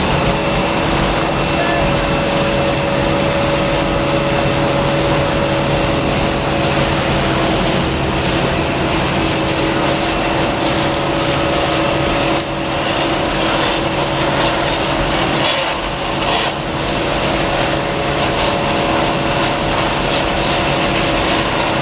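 Jet-vac combination truck running: steady engine and vacuum blower noise with a constant high whine and a few steady tones, dipping briefly twice in the second half.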